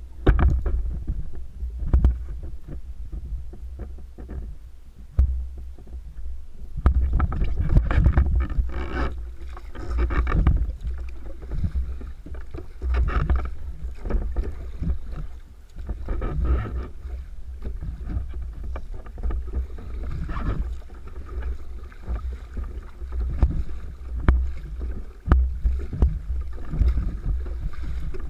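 Water splashing and slapping against a fishing kayak's hull, with irregular knocks and a constant low buffeting of wind on the microphone.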